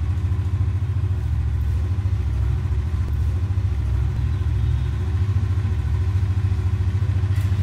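Small single-cylinder street motorcycle engine idling steadily with an even low putter.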